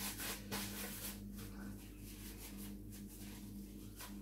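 Paper napkin crackling a few times in the first half second as hands are wiped, and once more near the end, over a steady low hum.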